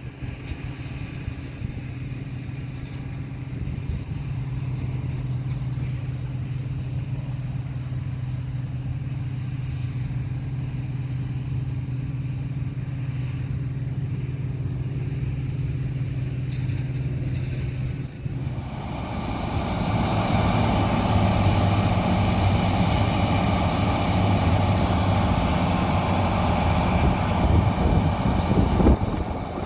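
Heavy diesel harvest machinery running steadily, a deep engine hum. About 18 seconds in, it changes abruptly to a louder, fuller machine noise with more rattle and higher sound in it.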